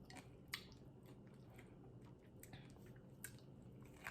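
Faint chewing of a BLT sandwich, with a few soft mouth clicks.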